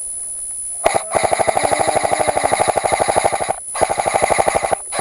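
Airsoft electric gun firing full-auto close by: a long burst of rapid, evenly spaced shots about a second in, a short pause, a second shorter burst, and a third starting near the end.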